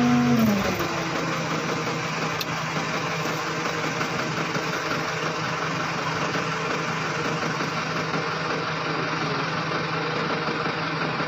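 Road roller's diesel engine dropping from higher revs about half a second in, then idling steadily.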